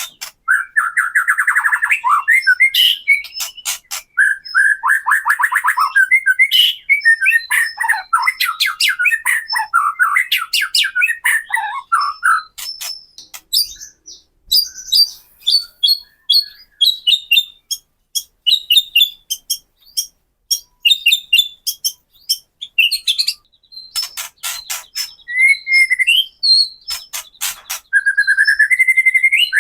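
White-rumped shama (murai batu) singing loudly: fast, varied warbling phrases broken up by rapid dry clicking rattles (the "kretekan" call), with a stretch of higher, thinner chirps and clicks after a short pause near the middle.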